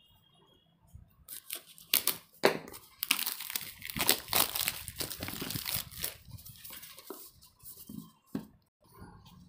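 Plastic shrink-wrap crinkling and tearing as it is pulled off a phone's cardboard retail box, with a couple of sharp snaps about two seconds in. It thins to scattered rustles near the end.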